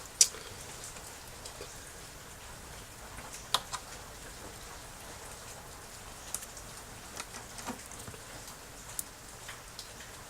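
Scattered small sharp clicks and taps of hand-held plastic and metal parts being handled, over a steady faint hiss. The loudest click comes just after the start; a few fainter ones follow every second or two.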